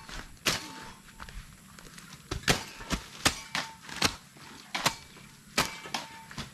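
Hoes chopping into soil, several people working at once: irregular sharp blows, about one or two a second, some with a short metallic ring from the blade.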